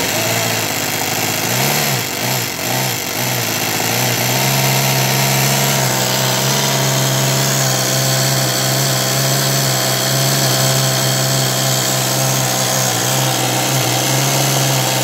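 Toyan FS-S100A single-cylinder four-stroke model engine running on its homemade coil-on-plug CDI ignition. Its speed wavers for the first few seconds, then settles to a steady note.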